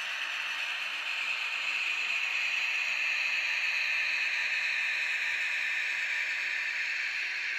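Fleischmann N-gauge BR 112 model diesel locomotive and its coaches running along the track: a steady mechanical rolling noise of small wheels on rail and the locomotive's drive, growing louder as the train passes close and easing off slightly near the end.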